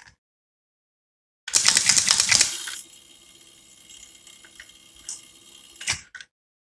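Rotary telephone dial running back and pulsing an electromechanical relay counting decade: a quick run of relay clicks, about ten a second for just over a second, as the counter steps to nine. A faint steady hum follows, then a couple of sharp relay clacks near the end as the counter resets to zero.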